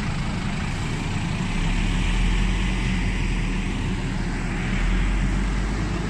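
Double-decker bus diesel engine running close by, a steady low rumble that swells through the middle, with the hum of the street around it.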